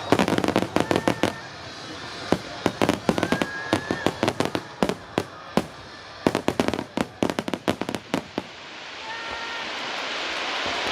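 Starmine fireworks barrage: aerial shells bursting in rapid, irregular succession, sharp bangs one after another. The bangs stop about eight seconds in, leaving a steady, slowly rising noise.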